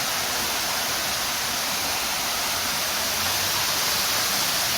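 A steady, hissy rushing noise that stays even throughout, like water falling or wind across the microphone.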